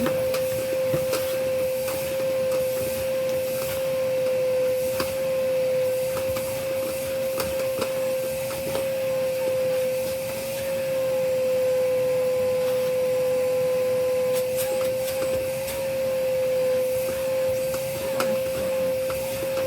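Vacuum cleaner running with a steady, unbroken whine, with scattered light knocks throughout.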